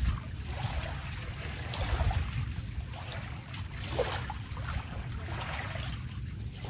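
Wind buffeting the microphone in an uneven low rumble, over small waves lapping and splashing in shallow lake water.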